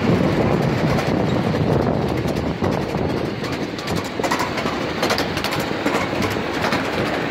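Miniature park train rolling along its narrow track, heard from one of its open passenger cars: a steady rumble, with a run of sharp clicks starting about halfway through.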